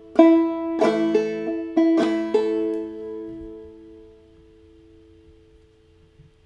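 Open-back banjo played clawhammer style on an A major chord. About six quick struck notes come in the first two and a half seconds, then the chord is left ringing and slowly dies away.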